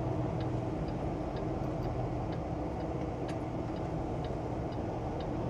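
Turn-signal indicator ticking steadily about twice a second inside a truck cab, over the steady hum of the truck's engine and road noise while turning.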